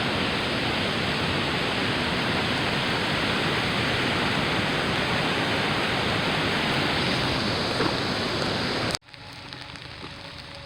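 Steady rushing noise of falling water. It cuts off abruptly about nine seconds in, leaving a much quieter faint hiss.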